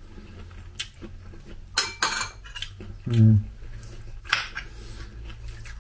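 Metal fork and spoon clinking and scraping against a ceramic plate as a salad is tossed: a handful of separate clinks, the sharpest about two seconds in.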